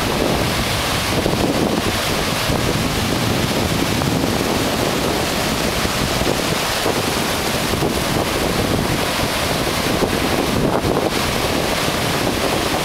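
Ocean surf breaking and washing up the sand, with wind buffeting the microphone: a loud, steady rush of noise.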